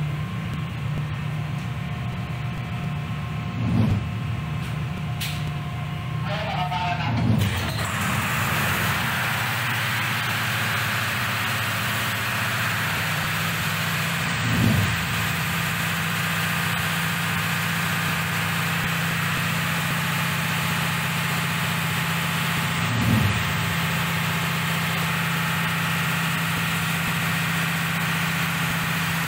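Ship's diesel emergency generator running steadily with no load on it. A broader hiss comes in about eight seconds in, and there are four brief thumps.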